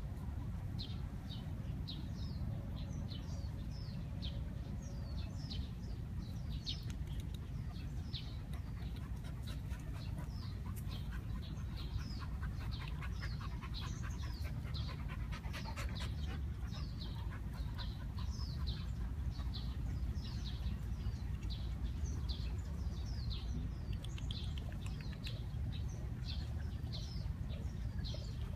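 Small birds chirping steadily, short falling chirps several a second, over a low rumble of wind on the microphone, with dogs panting close by, most clearly in the middle of the stretch.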